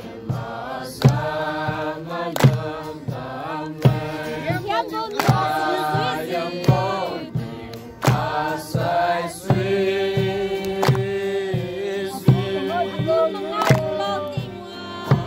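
Group singing of a Liangmai gospel song in the Naga language, men's voices leading, with an acoustic guitar playing along. Sharp hand claps keep a steady beat about every one and a half seconds.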